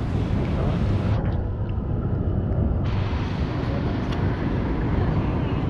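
Steady low rumble of wind buffeting the microphone, with no distinct knocks or tones. The higher hiss drops away for a second or two in the middle.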